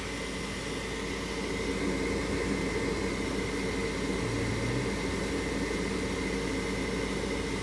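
Gas furnace's draft inducer fan motor running steadily, a constant hum with a whooshing hiss, during an ignition attempt in which the burner does not light.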